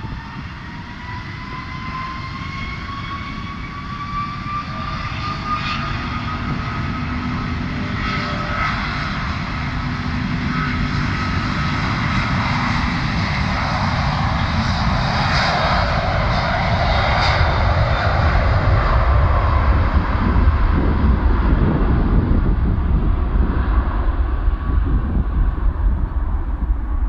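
Jet engines of an Airbus A330-200 spooling up to takeoff thrust. A whine rises in pitch over the first several seconds, then a deep rumble grows steadily louder toward the end.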